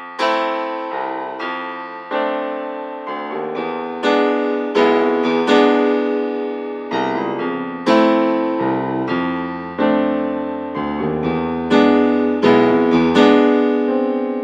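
Piano music: a slow run of struck chords, each ringing and fading before the next, about one a second.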